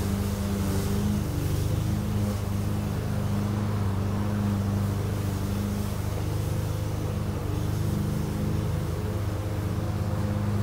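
Lawn mower engine running steadily at a constant speed.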